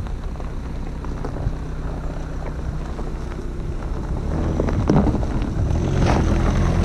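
Skoda SUV driving slowly over gravel, its engine running with a low hum and its tyres crackling on the stones. It grows louder as it comes close.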